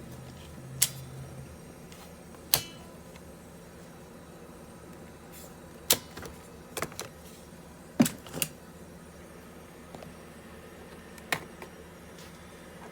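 Scattered sharp clicks and taps, about seven of them at uneven intervals, from a laptop's hard drive and casing parts being handled, over a steady low hum.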